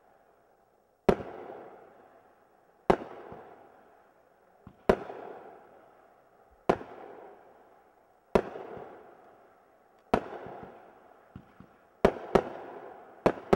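Consumer firework cake firing single shots, one sharp bang about every two seconds, each followed by a fading echo, with two shots coming closer together near the end.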